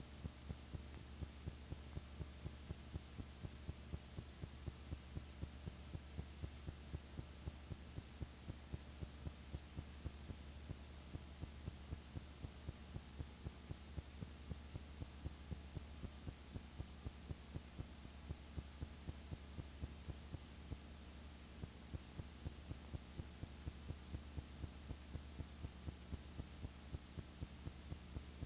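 Steady low electrical hum with faint, regular ticks about three to four times a second, with no sound from the scene itself.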